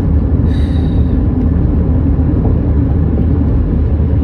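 Steady low rumble of a car driving, road and engine noise heard from inside the cabin. A short faint higher sound comes about half a second in.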